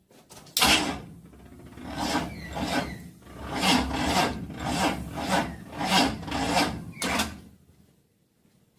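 Chevy C20 starter motor cranking the engine slowly on a somewhat flat battery, a steady rhythm of compression pulses about every 0.6 s. It stops abruptly after about seven seconds, the starter no longer running on after the remote solenoid fix.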